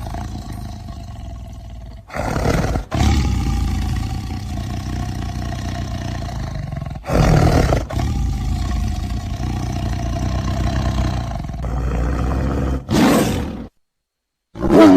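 Tiger roaring and growling: a continuous low growl, with three louder roars about five seconds apart, then a brief silence and the start of another short roar at the very end.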